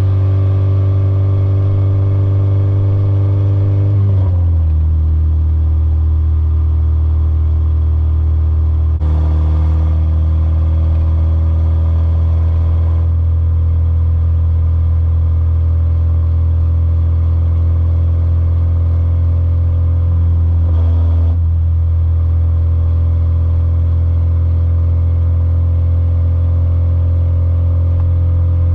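Car engine and road drone heard from inside the cabin while driving. The engine note drops and changes pitch at about 4 and 9 seconds in, as with gear changes, and drifts slowly in between.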